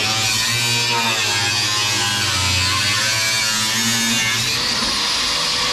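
Angle grinder with a cutting disc cutting through the sheet-metal seat platform of a pickup cab floor, its motor whine wavering in pitch as the disc bites and eases. The hiss of the cut grows stronger about three-quarters of the way through.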